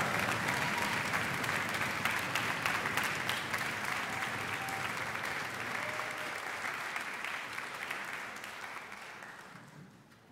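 Concert hall audience applauding, the clapping gradually thinning and dying away near the end.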